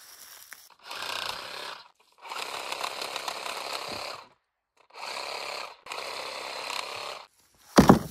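DeWalt cordless reciprocating saw cutting branches in four short bursts of one to two seconds each, with brief pauses between them. A heavy thump near the end is the loudest sound.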